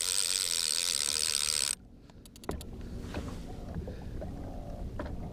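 Baitcasting reel being cranked to take up line: a steady, even whir that stops abruptly about two seconds in, followed by a few quick clicks, then low wind and water noise.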